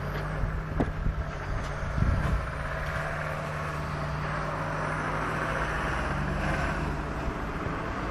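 Diesel engine of a long-reach demolition excavator running steadily, with a few sharp knocks of masonry and timber being broken, the loudest about two seconds in.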